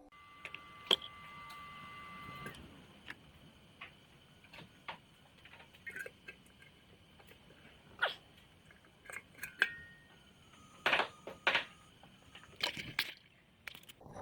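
Irregular clicks, taps and knocks, some close together, over a faint steady hiss, with two brief steady tones in the first couple of seconds.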